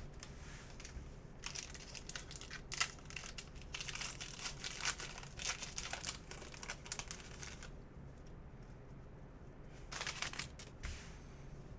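Foil baseball-card pack wrappers crinkling and tearing as packs are ripped open and the cards handled. The rustling is dense for most of the time, drops away for a couple of seconds, then comes back in one short burst near the end.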